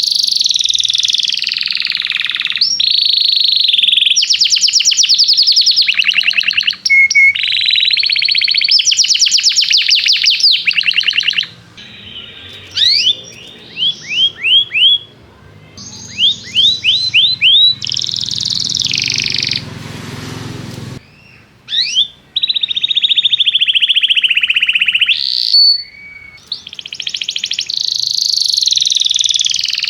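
Canary singing: long, very fast trills and rolls, with a stretch of short rising chirps in the middle before the trills resume. A brief hiss of noise comes about two-thirds of the way through.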